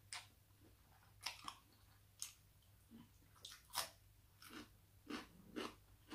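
A person chewing and biting a mouthful of raw vegetables with rice noodles. It comes as a string of short, crisp crunches, about a dozen in six seconds, irregularly spaced.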